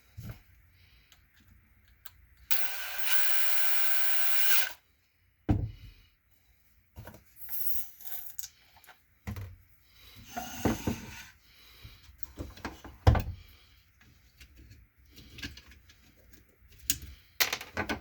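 DeWalt DCD995 cordless hammer drill's motor run for about two seconds with a steady whine, followed by scattered clicks and knocks of the drill being handled.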